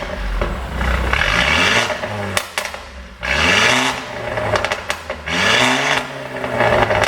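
Mercedes-Benz CLA250's turbocharged four-cylinder revved in about three blips, each falling back with a run of sharp pops and crackles from the exhaust as the revs drop: the sign of a pop-and-crackle engine tune.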